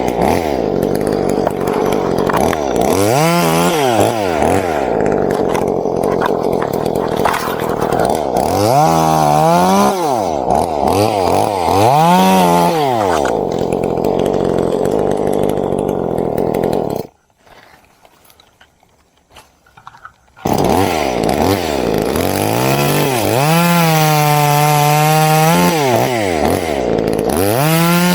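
Chainsaw running while cutting coconut-tree wood, its engine revving up and falling back to idle again and again. It drops out for about three seconds a little past the middle, then runs on.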